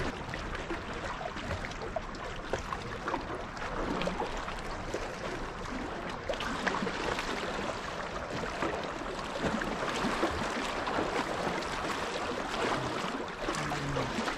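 Small wind-driven waves lapping and splashing against shoreline rocks, an irregular wash of small splashes, with wind rumbling on the microphone.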